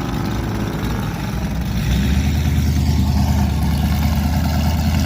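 A car's engine running loud at the drag strip, a deep steady drone that grows louder about two seconds in.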